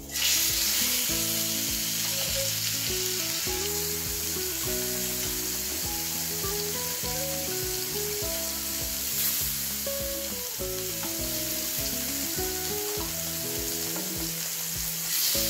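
Marinated chicken pieces frying in hot oil on a grill pan over a gas flame: a steady sizzle that starts abruptly as the first piece goes in and keeps on as more pieces are added.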